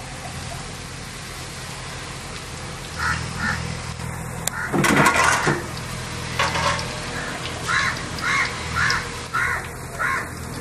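Crows cawing repeatedly in short runs of calls about half a second apart, over the steady sizzle of boondi frying in a pan of oil, with one louder rough noise about five seconds in.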